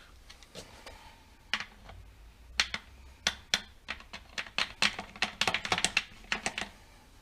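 A run of sharp, irregular metallic clicks, a few a second and quickening in the middle, from hand tools at work on the cam timing end of a Renault Clio 182 engine while its camshaft pulley bolts are nipped up.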